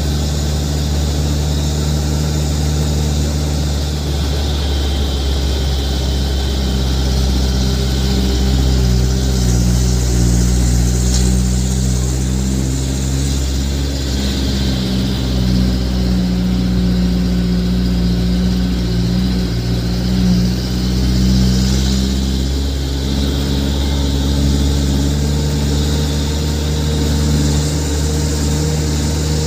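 Truck engine running steadily under way, heard from inside the cab; its note rises a little several seconds in and then holds.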